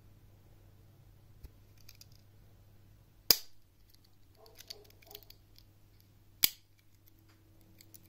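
Victorinox Bantam Swiss Army knife's tools snapping shut against the backspring: two sharp clicks about three seconds apart, the main blade about three seconds in, then the cap lifter. Lighter clicks of handling come between them.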